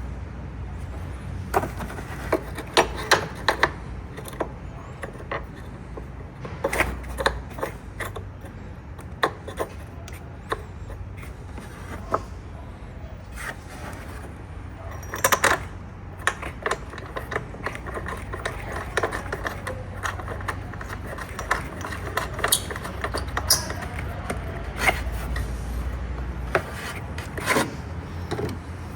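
Hand tools working on a car battery's terminals and fittings: a wrench and socket clicking, knocking and scraping against metal in scattered irregular strokes, over a low steady hum.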